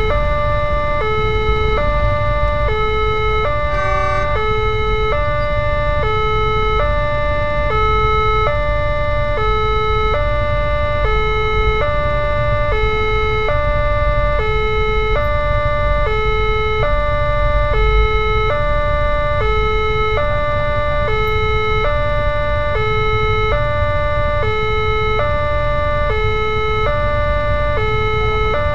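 Railway level crossing's electronic warning alarm sounding continuously, alternating between two pitches about once a second: the crossing is closed and a train is approaching.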